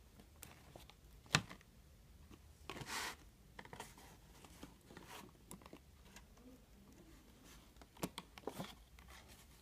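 Toy packaging being handled while tape is picked off by hand: quiet scattered clicks and taps, a sharp click about a second and a half in, and a short scraping rustle about three seconds in.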